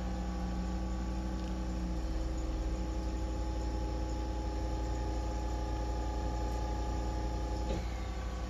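Steady electrical mains hum, a low drone with several evenly spaced tones; one extra tone in it drops out about two seconds in.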